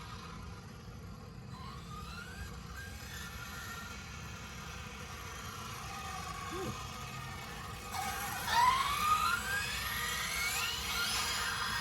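Arrma Felony 6S RC car's brushless motor and drivetrain whining, rising in pitch as it accelerates in several short runs, loudest about eight to nine seconds in. A steady low rumble runs underneath.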